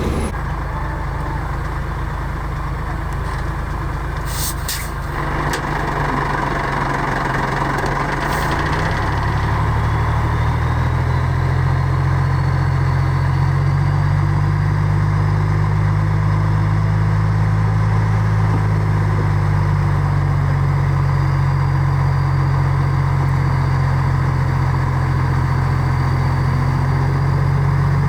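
Heavy diesel engine of earthmoving machinery running steadily, its note growing louder and fuller about nine seconds in and then holding. A few short, sharp sounds come around four to eight seconds in.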